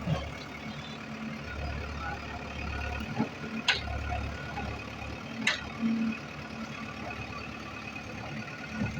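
Heavy diesel machinery running steadily, with two sharp knocks a few seconds apart a little past the middle.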